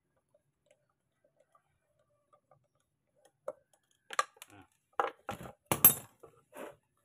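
A few faint ticks, then from about four seconds in a series of sharp metallic clicks and clinks. A scooter's starter motor and the tools on it are being worked loose and pulled free of the engine casing.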